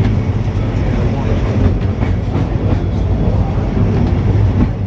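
Great Orme Tramway car, a cable-hauled tram, running downhill on its rails: a steady low rumble with scattered light knocks.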